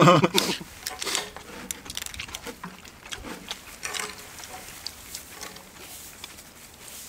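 Eating at the table: scattered light clicks and taps of utensils and dishes, with a few brief noisy sounds, over a quiet background.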